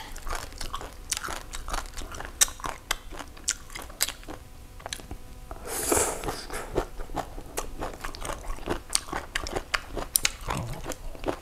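Close-up mouth sounds of someone biting and chewing a crunchy salted lamp-shell (cà xỉu) salad: many small crisp crunches and clicks. There is a short slurping suck about six seconds in as a strand is drawn into the mouth.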